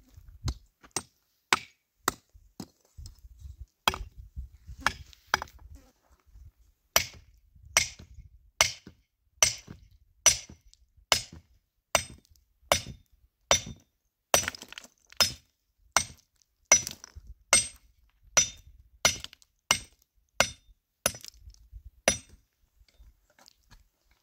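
Hand hammer striking stone over and over: sharp, ringing clinks, a few scattered at first, then a steady beat of just over one blow a second that stops a couple of seconds before the end.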